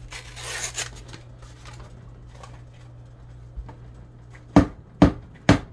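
Paper wrapper torn off a cardboard tube of refrigerated biscuit dough, then the tube rapped three times against a hard edge, about half a second apart, to pop it open.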